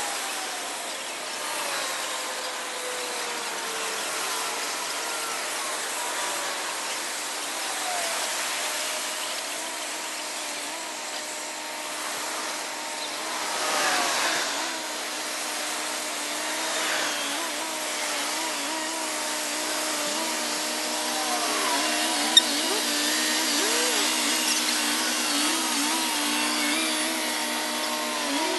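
Diesel semi tractors of a heavy-haul transport running as the convoy rolls slowly past. Their steady engine drone has several notes, some of which rise and fall. A single sharp click comes about 22 seconds in.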